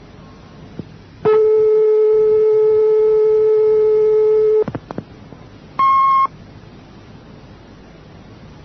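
Answering-machine tape between messages: a steady telephone tone sounds for about three seconds and cuts off with a few clicks. A single short, higher beep follows, marking the start of the next message, over constant tape hiss.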